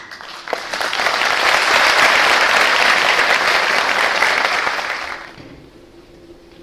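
Audience applauding: dense clapping that swells in the first second, holds for about four seconds, then dies away a little after five seconds in.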